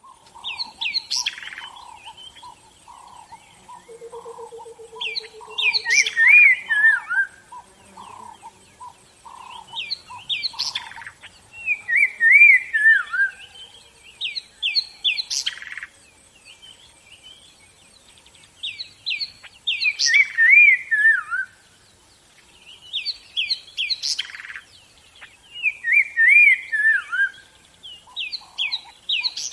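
Wild birds singing: one bird repeats a loud song phrase every four to five seconds, each ending in a quick falling run of notes, while another gives lower notes about once a second through the first ten seconds. A brief low trill comes about four seconds in.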